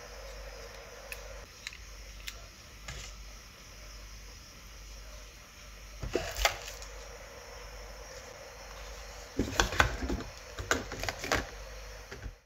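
Hands handling a plastic earbud charging case, its USB cable and a small plastic bag in a cardboard box. There are a few light clicks, then a short burst of knocking and rustling about six seconds in and a longer, louder one from about nine and a half seconds, over a steady low hiss.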